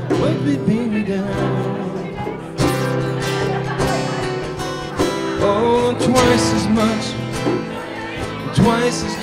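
Live acoustic performance: two acoustic guitars strummed together while a man sings into a microphone.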